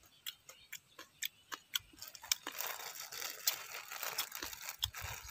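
Sharp clicks, then from about two seconds in a thin plastic bag crinkling and rustling as it is handled and opened.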